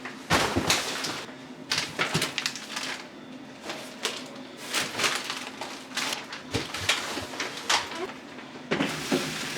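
Plastic grocery bags rustling and crinkling as they are handled, with a few light knocks of items being set down.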